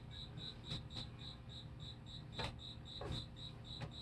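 A cricket chirping steadily, about three even chirps a second. A few light taps come from a plastic action figure being set down and posed on the tabletop.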